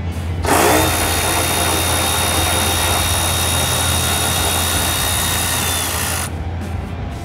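Power tool running steadily for about six seconds with a high motor whine, spinning out a small bolt under the car.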